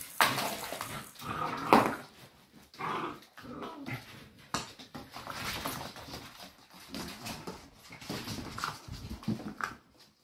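Puppies growling and yipping in short bursts as they play-fight over a ball toy, with scattered clicks and scuffles on the floor.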